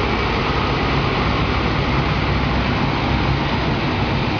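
Mercedes-Benz tri-axle coach's diesel engine running steadily with road noise as the coach drives off.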